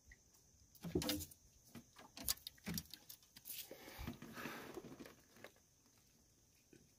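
Small fish and its hooked lure being handled while it is unhooked: faint scattered clicks and rattles, with a longer rustling stretch about four seconds in.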